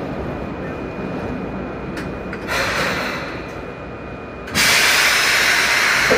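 Compressed air hissing on a standing Sotetsu electric train, over a low rumble: a shorter, fading hiss about two and a half seconds in, then a louder, steady hiss from about four and a half seconds on.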